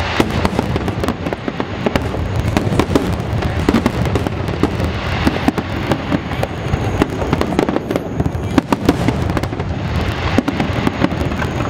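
Aerial firework shells bursting in rapid succession, many bangs overlapping into a continuous barrage.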